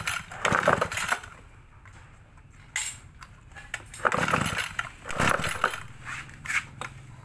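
Brush-cutter engine and parts being handled and set up: a series of short scraping and clattering bursts and a sharp knock, with quiet gaps between.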